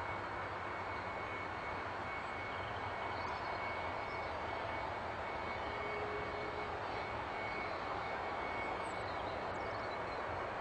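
Jet airliner engine running steadily: a constant rushing noise with a faint high whine.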